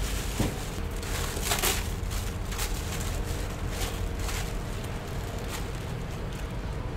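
Charcoal grill under racks of chicken crackling and popping with scattered short clicks, over a steady low hum, with one louder burst of hiss about a second and a half in.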